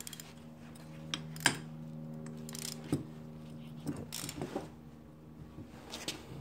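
Socket ratchet and a second wrench tightening a large nut on a suspension upright: scattered metal clicks and clinks, the sharpest about a second and a half in, over a steady low hum.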